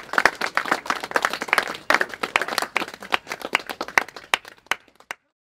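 A small group of people clapping, a dense patter of individual claps that thins out and stops abruptly near the end.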